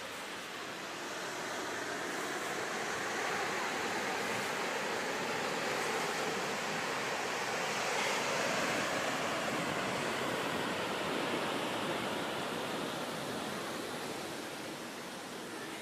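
Ocean surf: a steady wash of breaking waves that swells over the first few seconds and slowly eases off near the end.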